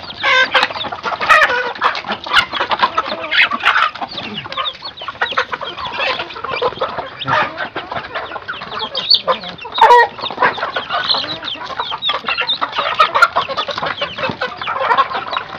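A flock of kampung chickens clucking while feeding, with scattered sharp taps of beaks pecking at the feed.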